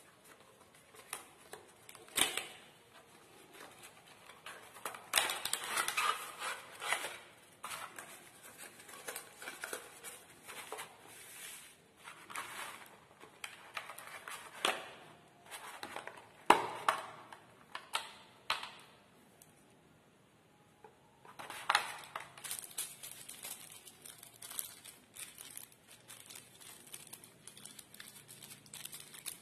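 Earphone packaging being handled during unboxing: a cardboard box opened and plastic wrapping crinkling, with irregular sharp clicks and taps and a short lull about two-thirds of the way through.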